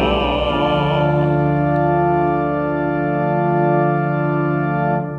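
Organ holding the final chord of a hymn, with singing voices dropping out about a second in; the chord is released near the end and dies away quickly.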